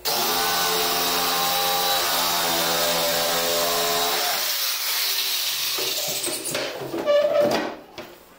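Corded jigsaw cutting through a wood-grain cabinet panel, its motor running steadily for about four seconds before the cut ends. Shorter, uneven knocking and scraping follow near the end.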